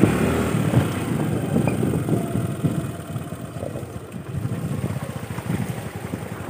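Motorcycle engine running in second gear while riding a muddy off-road track; its sound dips about halfway through and comes back up near the end. The rider finds the bike slow to pick up.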